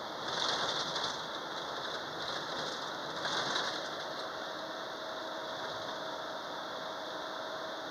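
Steady road and engine noise heard inside a moving bus's cabin, with two brief hissy swells in the first half and a faint steady whine joining about halfway through.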